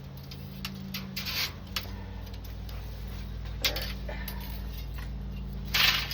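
Light clicks and short scrapes from handling a window-screen frame and its metal spline, the loudest scrape near the end, over a steady low hum.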